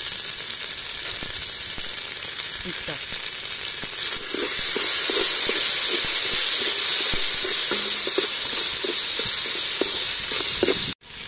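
Khmer spice paste sizzling as it fries in oil in an aluminium pot, stirred with a metal spoon that scrapes the pot; the sizzle grows louder about four seconds in. The sound breaks off for an instant near the end.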